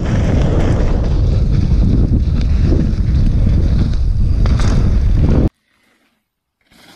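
Loud wind noise buffeting an action camera's microphone, mixed with the rumble and rattle of a mountain bike rolling fast down a dirt trail. It cuts off suddenly about five and a half seconds in, followed by a second of near silence and then faint outdoor sound.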